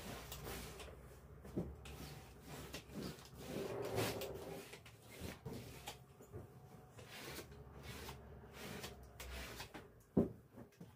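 Household handling noises: irregular rubbing, light knocks and clatter of objects being moved, with a sharp knock about ten seconds in.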